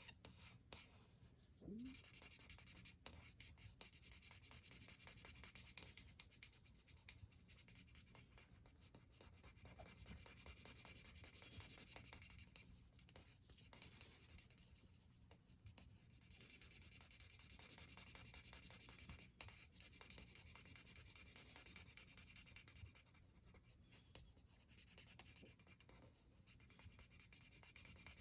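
Felt-tip marker rubbing faintly across paper, drawing and colouring in stretches of a few seconds with short pauses between.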